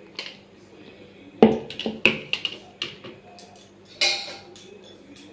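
Steel kitchen vessels and a spoon clinking and knocking against each other and a stone counter: a few separate knocks, the loudest about a second and a half in, and a short clatter about four seconds in.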